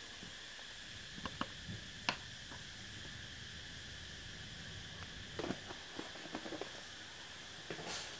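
Steady high-pitched insect chirring in two constant tones, with scattered light clicks and knocks, the sharpest about two seconds in and a few more near the end.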